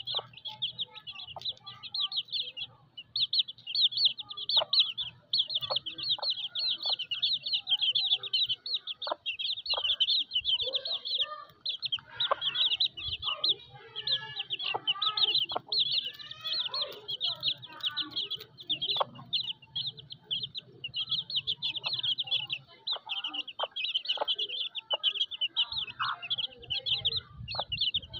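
A brood of chicks peeping nonstop in a high, rapid chatter with a few short pauses, while the mother hen makes lower clucking sounds, mostly around the middle.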